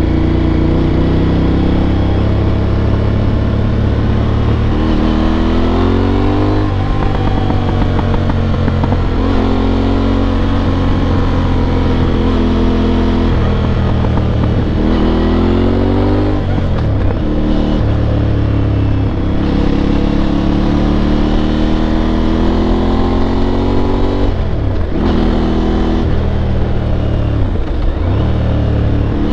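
Aprilia Tuareg 660's parallel-twin engine under way, pulling through the gears: the revs climb and fall again several times as it shifts, the speed building.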